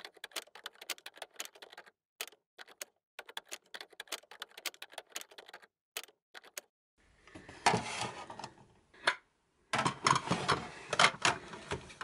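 Typing sound effect: quick, irregular keyboard-like clicks, several a second, for about six and a half seconds. After a short pause comes a louder stretch of rustling and knocking handling noise.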